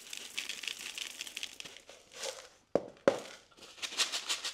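Pon, a granular mineral semi-hydro substrate, pouring out of a plastic pot into a clear plastic pot, a dense gritty rattle for about two seconds. It is followed by a few separate sharp clicks and a short burst of rattling near the end as the granules settle.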